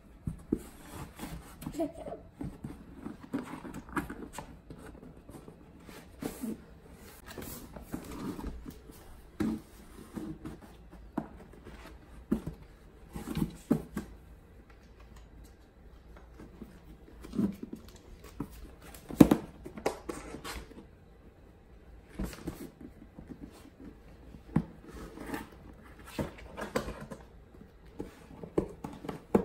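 Irregular taps, pats and thumps on a cardboard box as a baby's hands slap at it and a cat's paw bats out through holes cut in it, with one louder thump a little past the middle.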